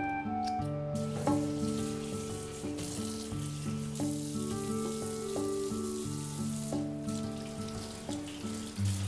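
Tap water running and splashing over leafy greens being rinsed in a stainless sink: a steady hiss that starts about a second in, with a brief break near the end. Background music with sustained notes plays underneath.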